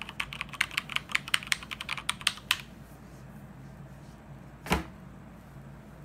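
Quick typing on a mechanical keyboard with Cherry MX Silver linear switches, keys clacking several strokes a second, pretty loud. The typing stops about two and a half seconds in, and a single thump follows a couple of seconds later.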